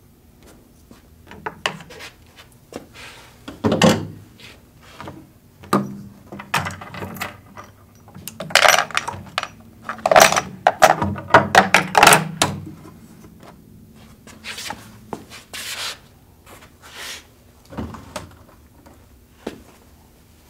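Handling noise from a rifle and gear on a shooting bench: scattered knocks, clicks and rubbing, with a busier cluster of clatter around the middle.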